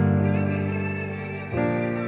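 Slow, gentle background music with sustained chords: a new chord strikes at the start and another about a second and a half in, each fading slowly.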